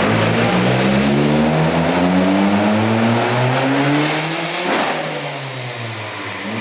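Turbocharged Ford Focus engine under full throttle on a dyno pull, its note rising steadily through the revs with a high whine climbing alongside. About three-quarters of the way in, the throttle is lifted at around 5,000 rpm with a short burst of noise, and the revs fall away.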